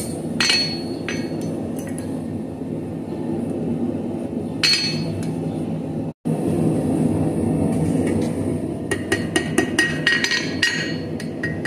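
Blacksmith's hand hammer striking a small hot ring held in tongs on the anvil, each blow ringing off the steel. A few single blows come in the first five seconds, then a quick run of strikes, about five a second, near the end.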